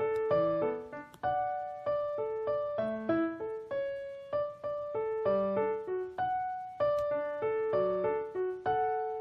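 Background piano music: a slow melody of single notes, each struck and fading away.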